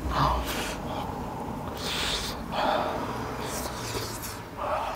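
A man eating a roasted potato close to the microphone: a few short chewing and breathing sounds, one near the start, two in the middle and one near the end.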